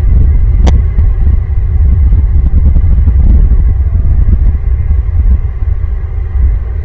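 A loud, steady low rumble, with a single sharp click just under a second in.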